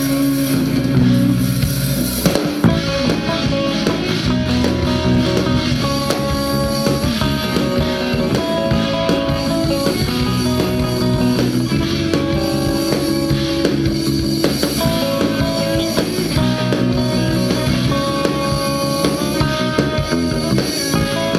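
A band playing with guitar and drum kit, with no singing: chords change about once a second over a steady beat.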